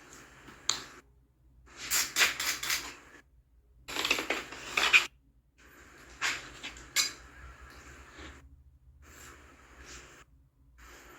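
Razor blade scraping over wet windshield glass in a series of short strokes, each a second or so long with pauses between, the strongest a few seconds in.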